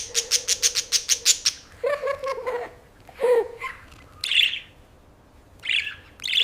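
A parrot squawking with a few short calls and harsh squawks, after a quick run of about a dozen sharp clicks in the first second and a half.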